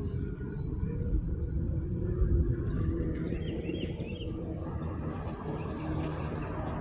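Small birds chirping in quick series of short high notes, over a steady low rumble.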